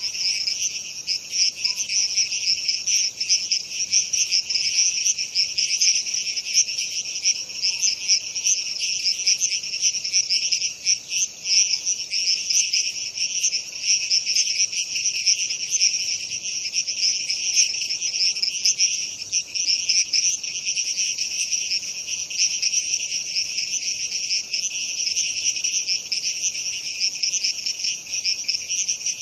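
Night chorus of frogs and crickets: a continuous, high-pitched mass of rapidly pulsing calls that never lets up.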